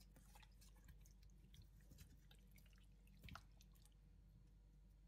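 Near silence with faint soft wet clicks from a hand pressing and rubbing the skin of a raw whole chicken, with one slightly louder click about three seconds in.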